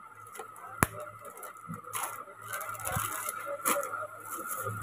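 Plastic goods and their plastic wrapping being handled: crinkling and scraping with a few sharp clicks, the loudest about a second in and another near the end, over a steady background hum.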